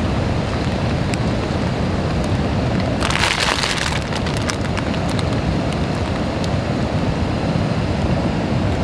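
Steady drizzle, with scattered small drop clicks over a low, even rumble. About three seconds in there is a brief crinkling rustle.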